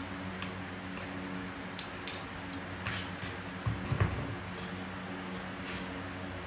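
Kitchen utensils and dishes clinking and tapping, with one louder dull knock about four seconds in, over a steady low hum.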